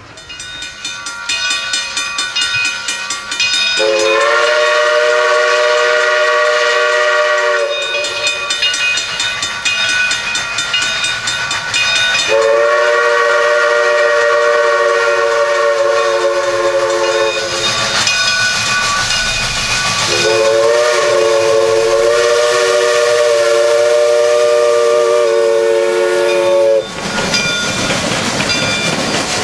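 Steam locomotive whistle, a chord of several notes, blown in three long blasts of about four to seven seconds each over the rhythmic chuffing of the engine's exhaust. Near the end a broad rush of steam and running-gear noise as the locomotive passes close.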